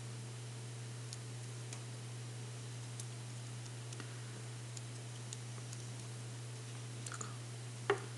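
Faint, scattered small clicks of thin insulated wires being handled and twisted by hand, over a steady low hum, with one sharper click near the end.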